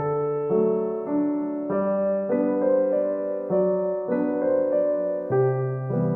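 Piano music: slow chords and melody notes, with a new note struck about every half second.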